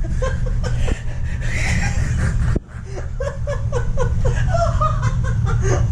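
Men laughing and chuckling in short repeated bursts over a steady low rumble. The sound cuts out briefly a little over two seconds in, then the laughter starts again.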